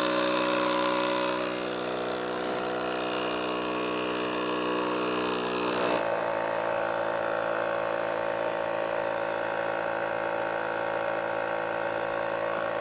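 A rechargeable portable electric tire compressor runs steadily, pumping air into a motorcycle's tubed tire to inflate it. Its steady tone shifts slightly about six seconds in.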